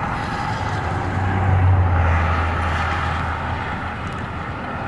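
A motor vehicle passing by: a low engine hum and tyre noise that swell about a second in, then fade gradually.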